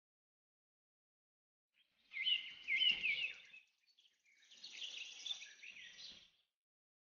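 Small birds chirping in quick series of short, curving notes, starting about two seconds in, with a second, fainter stretch of chirping a little later.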